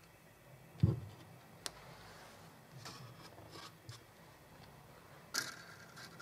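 Handling noises from pouring thick batter out of a plastic blender jug into paper muffin cases in a metal muffin tin: a dull thump about a second in, scattered light taps and clicks, and a sharper click near the end.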